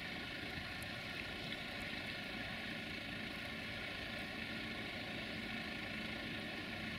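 Freight train of open wagons rolling away along the track: a steady, even rumble with a faint low hum.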